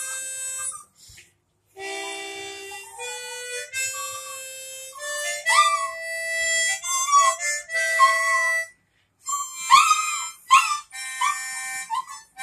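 Harmonica played as a slow melody of held notes, some sliding in pitch, with two short pauses.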